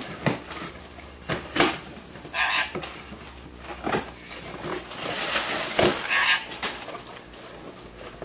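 Paper and cardboard packaging rustling and crinkling as items are pulled out of a box, with two short squawks from a sun conure, one about two and a half seconds in and one about six seconds in.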